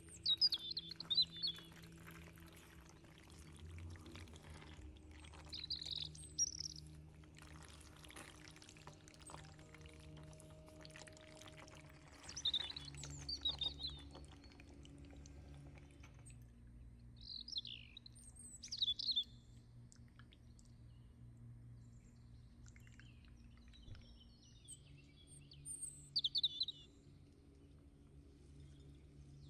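Bird chirps in short high bursts every few seconds over soft background music. Through the first half a silicone spatula stirs creamy sauced pasta in a pan with a wet squelching sound.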